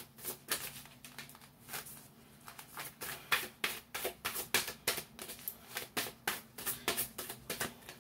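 A deck of cards shuffled by hand: a rapid, uneven run of light clicks and slaps, several a second, as the cards are mixed before one is drawn.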